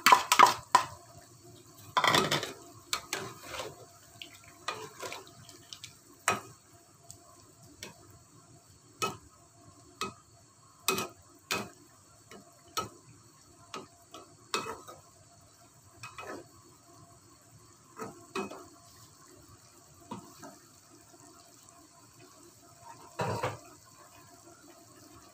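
Long-handled metal spoon stirring tofu and tempeh in a pan of thin turmeric broth, knocking and scraping against the pan about once a second, with liquid sloshing. A louder, longer scrape comes about two seconds in and another near the end.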